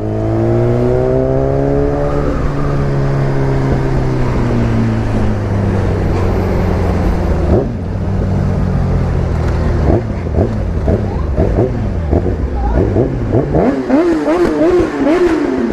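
Sport motorcycle engine winding down as the bike slows, its pitch falling over the first few seconds, with steady wind and road noise. Near the end come several quick throttle blips, the revs rising and falling in turn.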